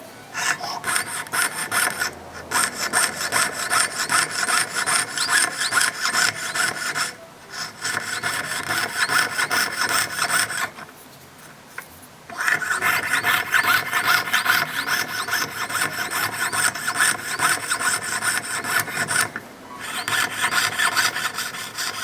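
A jeweller's piercing saw cuts openwork in a 1.5 mm sheet of 18K gold with quick, even hand strokes. The sawing comes in runs, stopping briefly four times.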